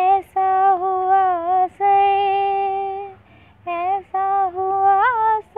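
A woman singing unaccompanied, without clear words: long held notes with small wavering turns, in several phrases broken by short pauses, rising briefly near the end.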